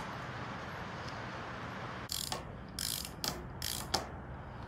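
Hand ratchet clicking in four or five short runs of strokes, starting about two seconds in, as the caliper bracket bolts are run in on a Mustang II front spindle.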